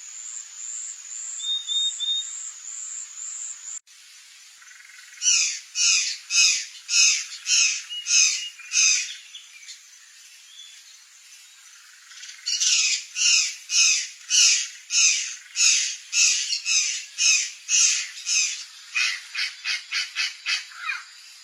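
A bird calling in loud repeated notes, about two a second, in two long bouts; the second bout speeds up into quicker, shorter notes near the end. Before a cut a few seconds in, softer high chirps repeat.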